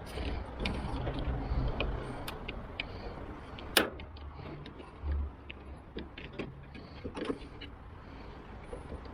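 Scattered small clicks and knocks of a car door lock and its linkage being worked on inside a door shell, with one sharp, loud click a little under four seconds in and a low rumble during the first couple of seconds.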